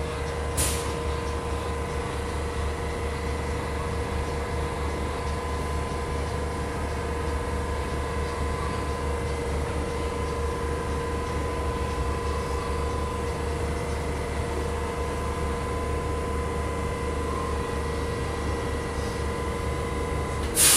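Steady machinery hum and low rumble in a subway station, with one steady humming tone and its overtones. There is a sharp click about half a second in and a louder click at the very end.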